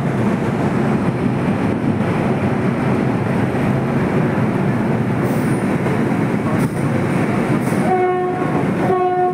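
Steady drone of a boat under way, engine and rushing water. Near the end a boat's horn sounds two short blasts, about a second apart.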